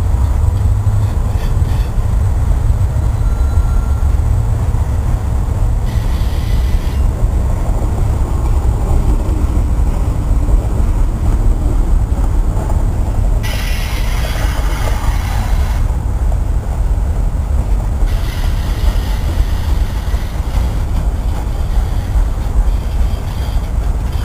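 Freight train's autorack cars rolling past, a steady heavy rumble of steel wheels on rail. A higher hiss comes and goes over it, strongest about fourteen seconds in.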